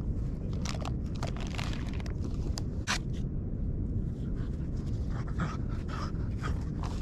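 Finnish Lapphund panting in short, quick breaths over a steady low rumble.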